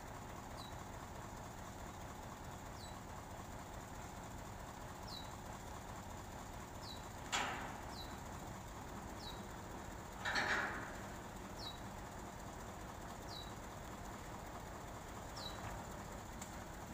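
Steady running noise of the boom truck's engine driving the crane hydraulics as the boom swings and the hook is lowered, with two louder knocks about seven and ten seconds in. Over it a bird gives a short, high, falling chirp every couple of seconds.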